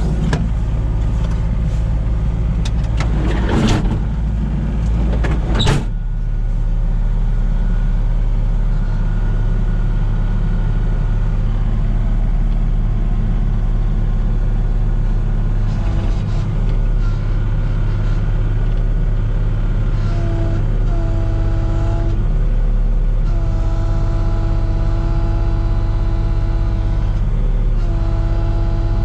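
Komatsu PC16 mini excavator's diesel engine running steadily, with two sharp knocks a few seconds in. From about halfway on, a hydraulic whine comes and goes and changes pitch as the controls are worked.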